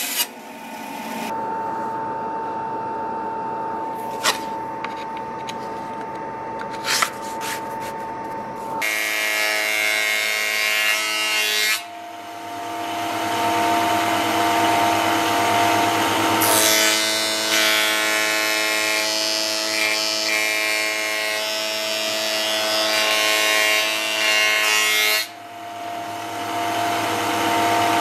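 Woodworking power saws running and cutting wood in several short stretches: a bandsaw cutting a curved line through a wooden board, then a table saw running and cutting wood, each with a steady motor whine under the cutting noise.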